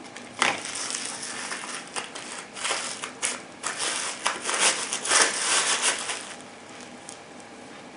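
Packaging being handled and crinkled by hand: a run of irregular rustles and crackles lasting about six seconds, then it stops.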